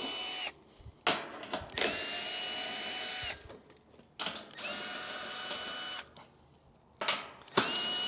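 Cordless drill-driver backing out the screws that hold the top panel of a central air conditioner's outdoor condenser unit. It whines at a steady pitch in runs of about a second and a half: one ends just after the start, two more follow, and another begins near the end. A few small clicks come from the bit and screws between runs.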